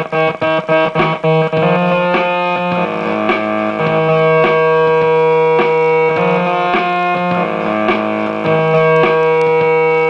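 Homemade joystick-controlled synthesizer playing: a run of short, plucked-sounding notes, about two a second, then from about a second and a half in, held tones that step from pitch to pitch over a steady low drone as the joystick is moved.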